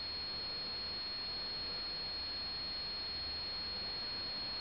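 Steady background hiss with a constant high-pitched whine and a faint low hum: recording noise and room tone, with no other sound standing out.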